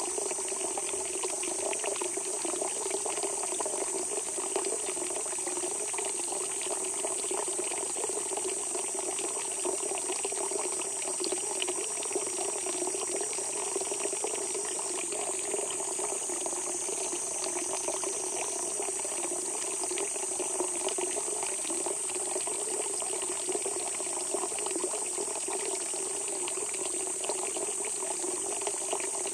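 Spring water welling up and gushing steadily from the ground, an even, unbroken bubbling rush. Above it runs a steady high-pitched trill, likely insects.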